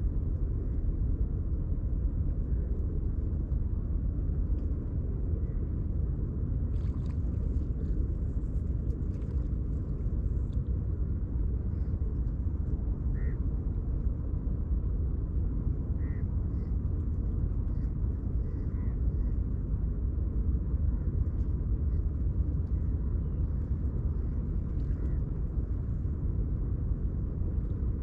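Steady low outdoor rumble by the water, with a few faint short ticks.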